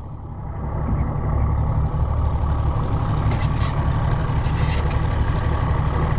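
Boat's outboard motor running steadily at low trolling speed, fading in over the first second.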